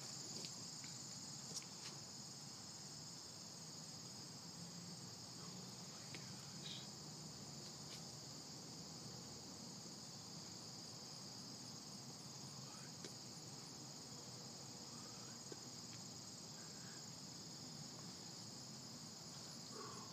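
Steady, faint chorus of insects such as crickets, a continuous high-pitched trill with a few faint clicks.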